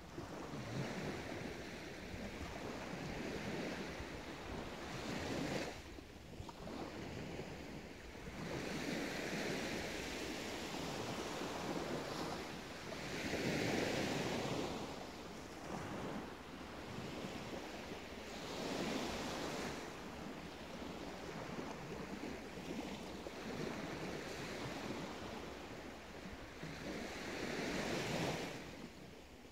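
Small sea waves washing onto a sandy shore, the surf swelling and fading every few seconds, loudest about halfway through.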